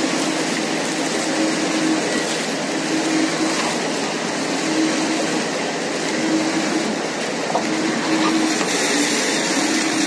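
Steady running noise of grape-washing machinery, with a low hum that swells and fades every second or so.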